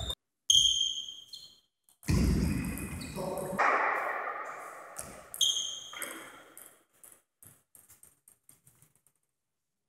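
Table tennis ball hits with a short ringing ping, twice. Near the end a ball bounces on the hard floor, the bounces coming faster and fainter as it settles.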